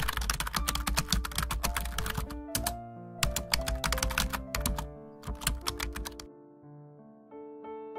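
Rapid clicking in several quick runs with short breaks, like typing on a keyboard, over background music. The clicking stops about six seconds in and the music's piano notes carry on alone.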